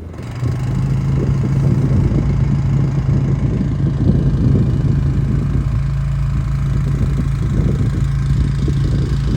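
An engine running steadily at one even pitch, with a low rumble under it.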